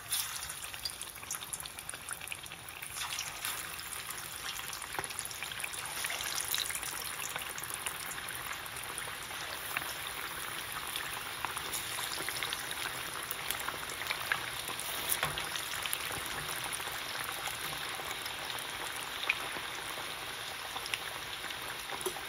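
Marinated fish pieces sizzling and crackling as they deep-fry in hot refined oil in a kadhai. The sizzle starts as the first piece goes in, grows louder about three seconds in as more pieces are added, then holds steady with scattered pops.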